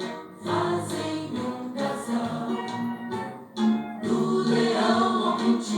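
Choral gospel-style song with several voices singing, played back through a car stereo head unit driving two loudspeakers.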